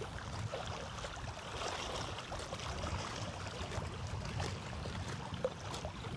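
Steady waterside ambience: moving water with a low rumble underneath and small ticks and splashes throughout.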